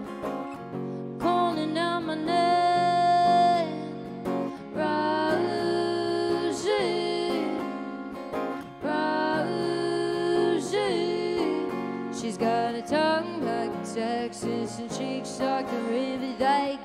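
Live acoustic song: a woman singing over her own strummed acoustic guitar, with several long held, wavering notes.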